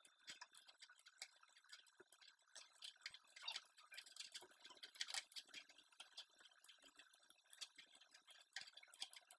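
Faint, irregular clicking from a laptop being operated as points are selected and colours picked in a drawing program.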